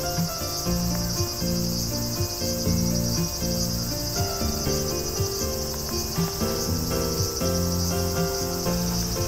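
A steady, high-pitched chorus of insects (crickets or cicadas) trilling, over background music of sustained notes that change pitch about every half second.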